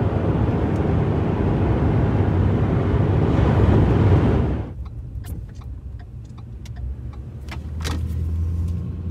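Road and wind noise inside a moving pickup truck's cab at road speed, dropping suddenly about halfway through to a quieter low engine and tyre hum with a few light clicks.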